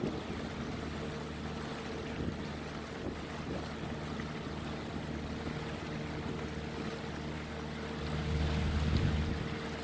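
Motorboat engine running at a steady speed under a haze of water and wind noise, swelling louder for a moment near the end.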